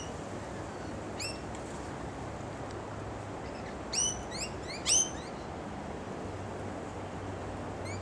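Rainbow lorikeets calling in short, shrill notes: one about a second in, a cluster of louder ones in the middle, and another near the end.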